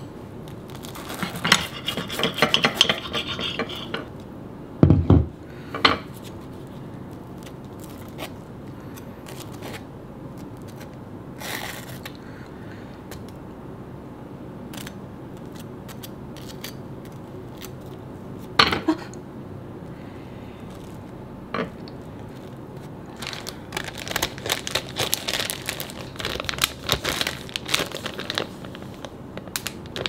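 Table knife scraping peanut butter and jam onto bread slices, with a few sharp clicks of the knife and jar against a ceramic plate. Near the end, a plastic zip bag crinkles as the sandwich is packed into it.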